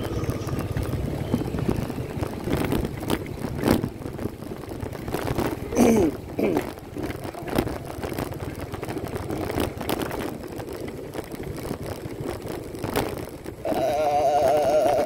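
Motorcycle riding over a rough gravel road, heard from on the bike: wind buffeting the microphone and the rumble of the ride, with frequent knocks and rattles as the bike jolts over stones. A steadier pitched sound comes in near the end.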